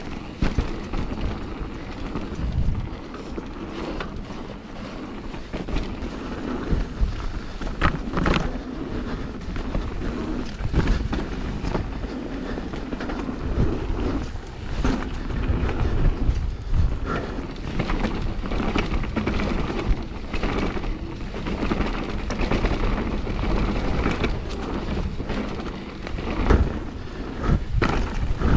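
Mountain bike descending a rough, muddy trail, heard from the rider's action camera: wind buffeting the microphone over the rumble of the tyres on wet dirt and roots, and the bike rattling, with frequent irregular knocks as it hits bumps.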